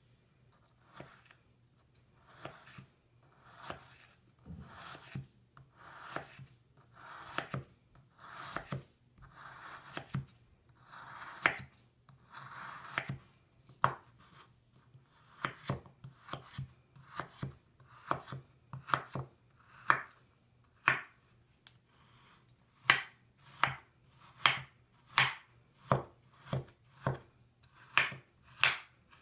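Large kitchen knife cutting through a crumbly solid bubble bar on a bamboo cutting board. In the first half each slow slice is a soft scraping cut ending in a tap on the board. After that the cuts come quicker, as sharp knocks of the blade on the wood about one to two a second.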